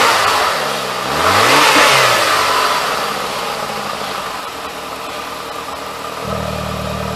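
Saab 9-3 car engine, just started on a homemade tank test frame, revved up and down twice in the first two seconds, then running more evenly and settling into a steady idle near the end. Its exhaust runs through a loose muffler held by hand.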